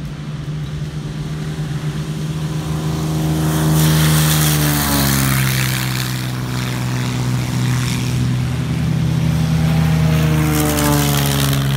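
Two single-engine piston airplanes, an SX300 and its chase plane, taking off one after the other at full power. The engine note drops in pitch as the first goes past, about four and a half seconds in, and again as the second passes near the end.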